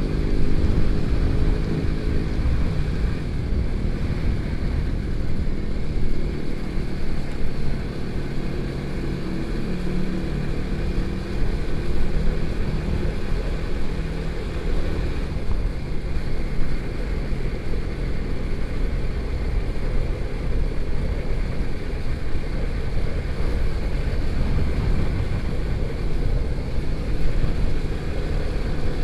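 Motorcycle engine running while riding, its pitched note clear for the first two seconds and then mostly buried under a steady rush of wind and road noise.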